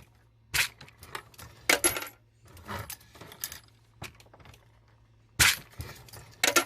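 Brass .223 cases clinking as a 3D-printed case feeder on a Hornady Lock-N-Load AP progressive reloading press is run and the press is cycled: sharp metallic clinks and clanks about a second apart, over a faint low steady hum.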